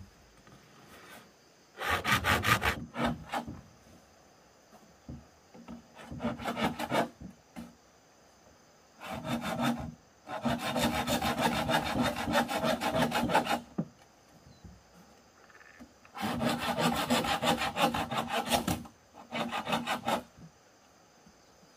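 A hand tool worked back and forth on bamboo in rapid rasping strokes. It comes in about six bursts, the longest about three seconds, with short pauses between them.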